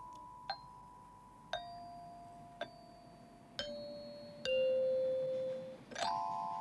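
Metal chime bars of a musical playground instrument struck one at a time, about once a second, each note ringing on while the pitch steps down bar by bar. Near the end several bars are struck together.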